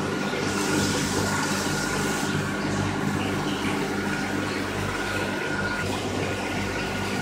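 Water pump running with a steady hum while water flows and splashes in a shallow pool.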